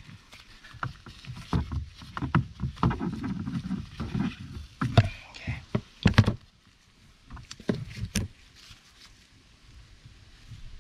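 Gloved hands handling wiring and a pair of wire strippers, making rustling and a string of clicks. The sharpest snaps come about five and six seconds in and again near eight seconds, as the wires are cut.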